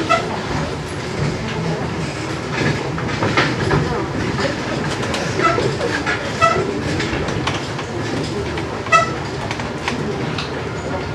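Steady murmur and shuffling of a seated school-hall audience and actors moving about the stage, broken by a few short, sharp high sounds, the loudest about nine seconds in.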